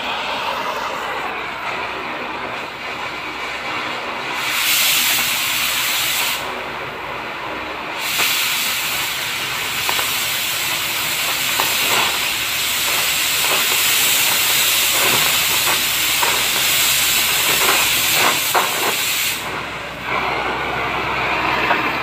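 Oxy-fuel cutting torch burning on steel plate: a steady flame hiss, with a much louder, brighter hiss of the cutting-oxygen jet twice, briefly from about four and a half seconds and then from about eight seconds until near the end. Scattered small crackles come from the cut.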